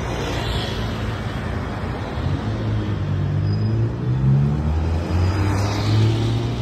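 Road traffic: motor vehicle engines running past, one rising in pitch as it accelerates about three seconds in and another swelling near the end, over steady tyre and road noise.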